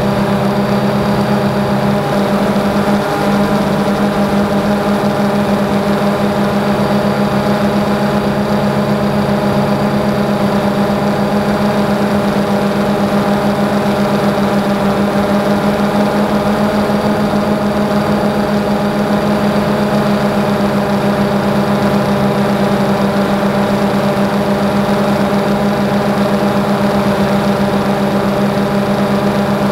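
DJI Phantom 2 quadcopter's motors and propellers buzzing steadily in flight, heard from the action camera mounted on the drone. One lower note drops away about two seconds in.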